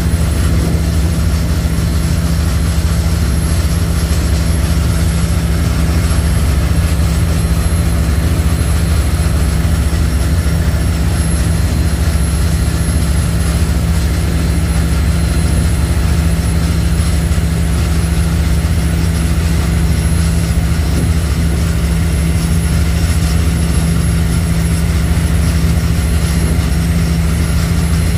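High-speed passenger ferry's engines running steadily at cruising speed: a loud, even low drone that does not change.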